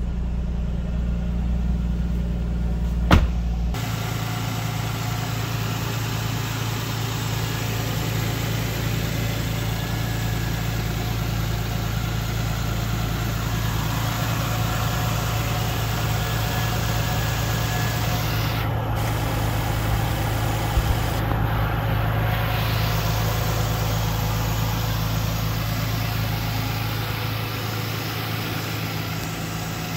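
Nissan Skyline R34's RB25DET NEO6 turbocharged straight-six idling steadily. A single sharp click comes about three seconds in.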